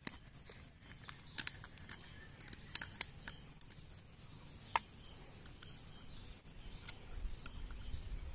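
Irregular sharp metallic clicks and ticks, a dozen or so, as a piston ring is worked by hand into its groove on the aluminium piston of an S195 engine.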